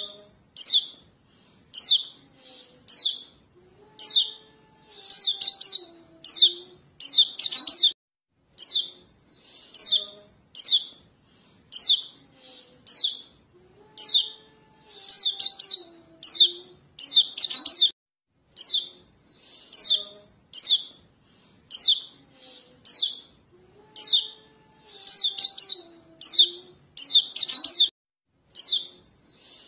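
Young yellow white-eyes (kecial kuning) calling for their parents: short, high, insistent chirps, one to two a second, bunched into quick clusters. It is a lure recording that repeats the same sequence about every ten seconds.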